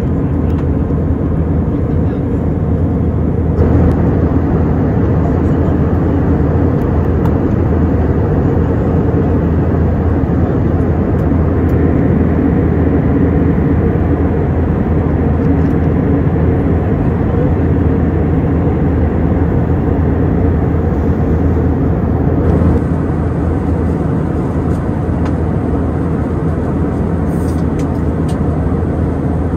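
Airbus A320 cabin noise in flight: a steady low rumble and rush of engines and airflow. Its tone shifts slightly about four seconds in and again near 23 seconds.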